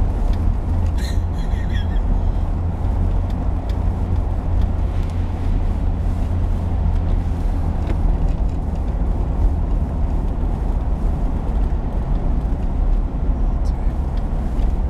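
A car driving steadily, heard from inside the cabin: an even low rumble of engine and tyres on the road.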